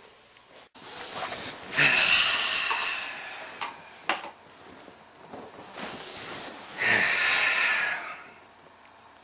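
A man's loud breathy exhales, twice, each about a second long and sharp at the start, about five seconds apart, with quieter breathing and small movement sounds between.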